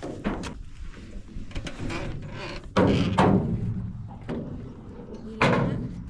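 Hollow thuds and knocks of people stepping into and settling in a narrow wooden-style riverboat. The loudest two come close together about three seconds in, with another near the end.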